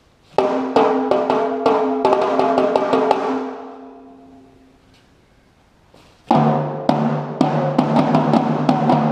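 Drum ensemble playing tuned drums in two phrases of strikes that quicken and ring on after each hit. The first phrase dies away, and a second, deeper phrase comes in about six seconds in.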